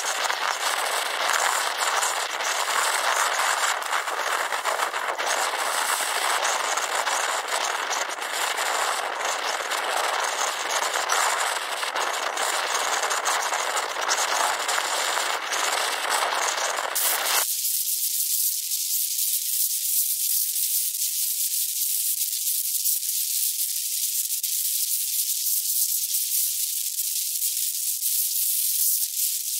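Wind blowing across the microphone: a dense rushing hiss full of fine crackles, which a little past halfway cuts abruptly to a thinner, high-pitched hiss.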